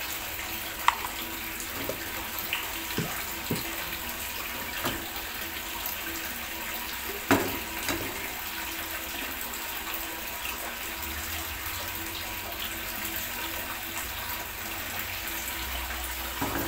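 Beaten egg sizzling steadily in a little hot oil in a nonstick wok as a thin omelette sets. A few light clicks over it, the sharpest about seven seconds in.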